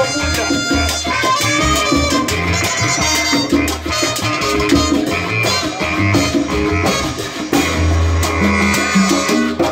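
A live salsa band playing a steady, upbeat groove on congas, timbales and maracas, with melodic lines over the percussion.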